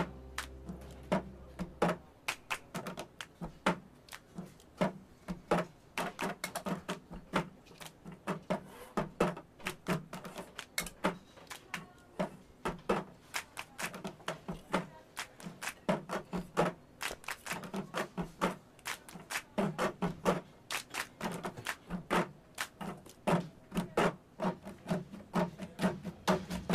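Cup-game percussion: hand claps and a cup tapped and slapped on a table in a repeating pattern, several hits a second, with no singing.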